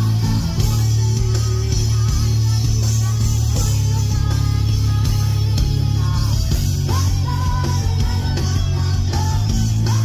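Rock power trio playing live through a loud PA: electric guitar over bass and drums, with a sustained low bass note underneath and bending guitar notes on top.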